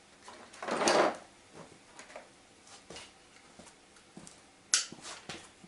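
Someone moving about and picking up a breaker bar: a loud scuff about a second in, scattered light clicks, and a sharp click near the end.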